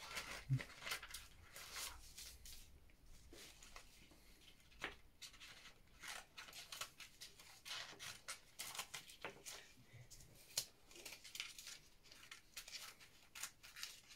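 Scissors snipping through paper in short, faint, irregular cuts.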